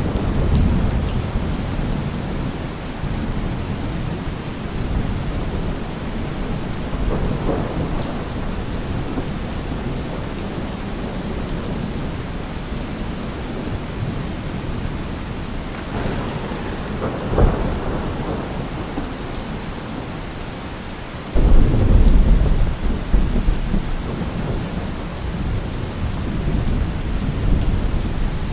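Steady heavy rain with rolling thunder. Short sharp cracks come about 7 and 17 seconds in, and a sudden loud thunderclap about 21 seconds in rumbles on afterwards.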